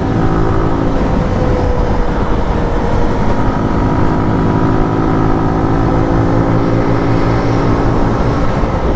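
Zontes 155cc motorcycle engine running while being ridden at a steady cruising speed, its pitch holding fairly even, over a heavy low rumble.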